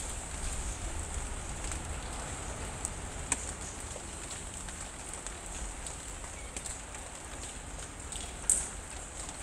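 Steady background hiss over a low rumble, with scattered sharp clicks; the loudest click comes about eight and a half seconds in. No cat calls stand out.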